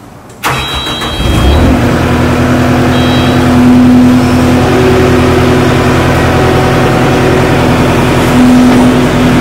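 Skid steer engine starting about half a second in, revving up and then running steadily at a constant speed, with a couple of short high beeps in the first few seconds.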